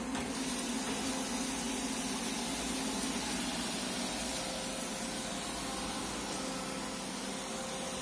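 iRobot Roomba e5 robot vacuum running steadily, a constant hum from its suction motor and brushes under an even hiss.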